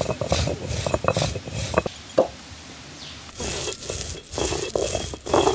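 Stone roller working turmeric and red chillies on a granite grinding slab: a run of short sharp knocks as the stone crushes the pieces, then, after a brief pause, rasping back-and-forth grinding strokes about twice a second.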